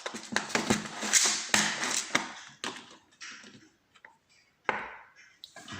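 Small metal tools and lock parts being handled on a hard surface: a rapid clatter of clicks, taps and rustling, then a few separate sharp clicks and one louder scrape near the end.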